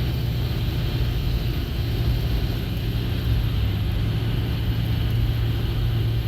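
Car cabin noise while driving: a steady low engine and drivetrain hum under even road and tyre noise, heard from inside the car.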